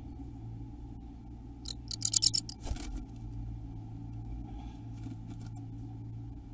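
Great tit scratching and rustling in the moss lining of a wooden nest box: a quick run of dry scratches about two seconds in, with a few fainter ones later.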